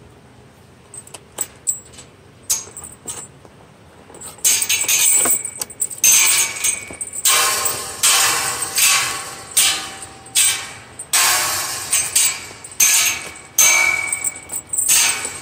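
Footsteps swishing through wet grass and brush at a walking pace, a rustling burst with each step about three times every two seconds, after a few scattered clicks at the start.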